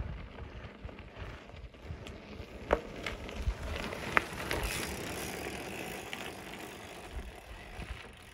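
Mountain bike rolling over a rocky dirt trail: steady crunch and rattle of tyres on dirt and stones, with two sharp knocks, one a little under three seconds in and one about four seconds in.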